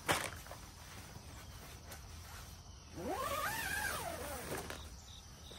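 A single long animal call, about 3 s in, that rises smoothly in pitch and then falls again over about a second and a half. A sharp click comes right at the start.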